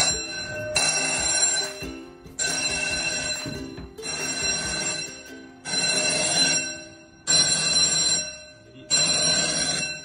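Electric fire alarm bell ringing in repeated bursts, about six in all, each about a second long with roughly half a second's gap. The fire alarm system is in alarm after a heat detector was heated.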